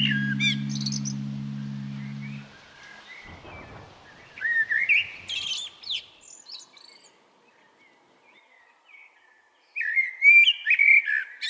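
Birds chirping in short groups of quick rising and falling notes, three bursts with quiet gaps between them, the last and loudest near the end. Under the first burst a low sustained music drone fades and stops about two and a half seconds in.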